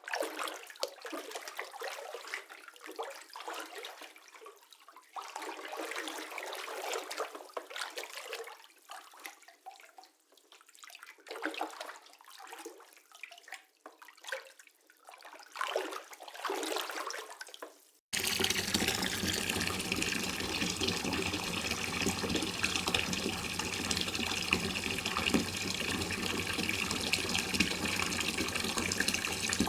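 Water sound effects: for about 18 seconds, irregular splashing and trickling water with no bass, then a sudden cut to steady, rushing running water.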